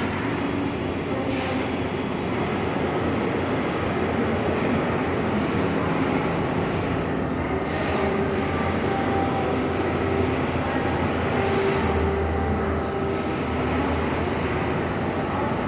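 R62A New York City subway train running, a steady rumble and rush with faint hums from its motors and equipment.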